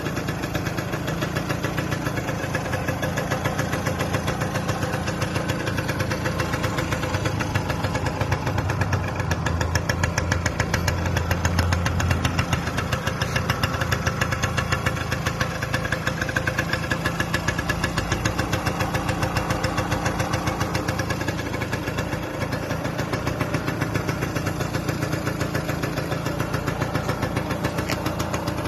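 Yamaha Chappy LB50's small two-stroke single-cylinder engine running at idle, a steady, fast, even pulsing, a little fuller for a few seconds around the middle, after its restoration.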